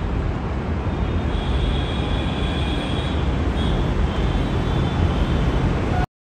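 Steady low rumble of a moving vehicle, with a faint high whine in the middle; it cuts off abruptly near the end.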